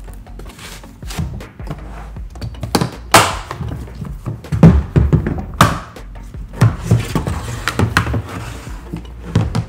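Rigid plastic hard-shell equipment case being shut and latched: about half a dozen sharp thunks and snapping clicks from the lid closing and the latches being pressed home and handled. Faint background music underneath.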